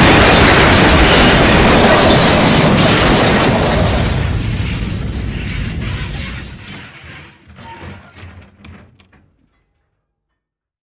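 Train crash sound effect: a loud, dense grinding crash of metal and breaking debris that dies away over the first six seconds, then a few scattered clatters of settling wreckage before it stops, about nine seconds in.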